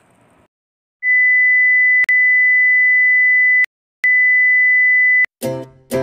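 Electronic beep tone, a single steady high pitch, sounding twice: a long beep of about two and a half seconds, a short gap, then a shorter one of about a second, each starting and stopping with a click. Background music starts just before the end.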